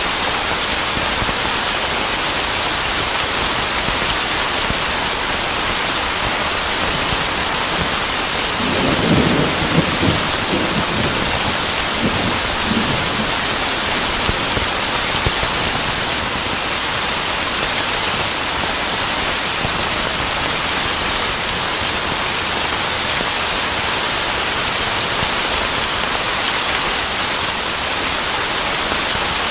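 Heavy rain falling steadily in a dense, even hiss. A low roll of thunder rumbles in about nine seconds in and fades out over the next few seconds.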